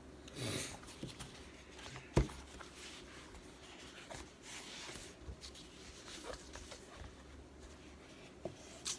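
Light scratchy rustling of hands handling an iPad mini case and its packaging, with one sharp click about two seconds in and a few smaller ticks later.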